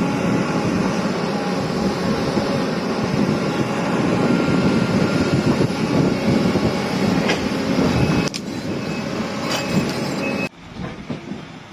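Sumitomo SH350 hydraulic excavator working: its diesel engine runs loud under load amid heavy rumbling and metallic clattering. The noise eases a little about eight seconds in and drops off suddenly about ten and a half seconds in.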